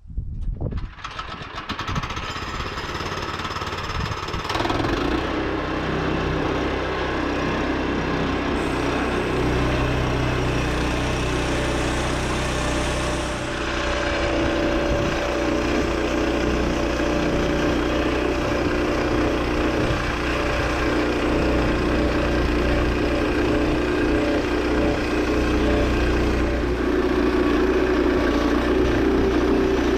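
The 7-horsepower gas engine of a Woodland Mills 122 bandsaw mill running under load as its band blade saws through a cherry log. It builds up over the first few seconds, then settles into a steady run.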